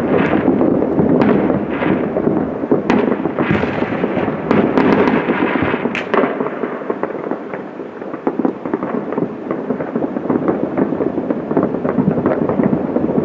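Fireworks going off: a dense, continuous crackle with many sharp bangs through the first half, thinning to lighter crackling after about six seconds.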